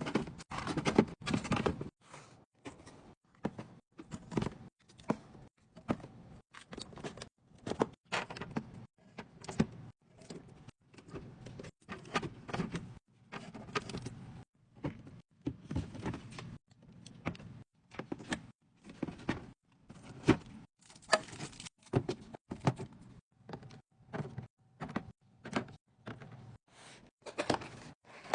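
Containers and packaged food being handled and set into a fridge: an irregular run of short clicks, taps, knocks and rustles, several a second, with brief pauses.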